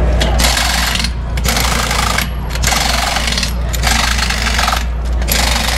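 Pneumatic impact wrench rattling in about five bursts of roughly a second each as it runs the lug nuts on a race car's wheel, with a steady low hum underneath.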